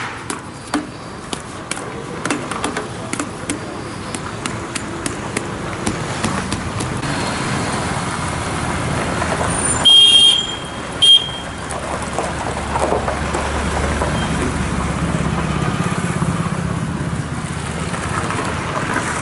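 Road traffic on a rough gravel road, with a run of sharp ticks in the first few seconds. A vehicle horn sounds two short toots about ten and eleven seconds in, then a heavier vehicle's engine rumbles past, louder for several seconds.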